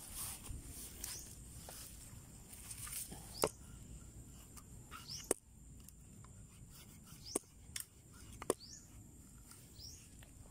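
Birds chirping outdoors, short rising high-pitched calls repeated every second or two, with a few sharp clicks in between.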